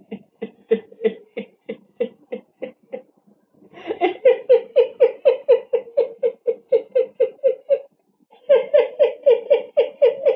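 A person laughing in long runs of rhythmic 'ha-ha' pulses, about four to five a second, breaking off briefly twice and then starting up again louder.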